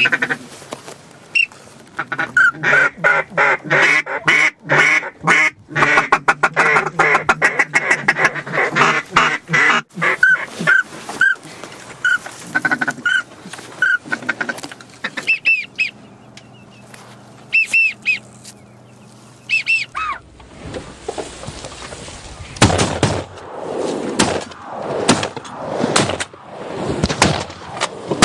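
Duck quacking and calling: a fast chattering run, then a string of single quacks about two a second, with a few high whistled notes. Near the end it gives way to a louder, rougher stretch of uneven bursts.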